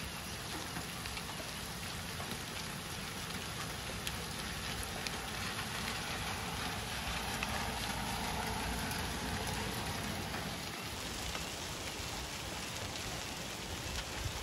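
Heavy rain mixed with hail falling steadily on roofs and pavement, a continuous hiss with scattered faint ticks of hailstones striking.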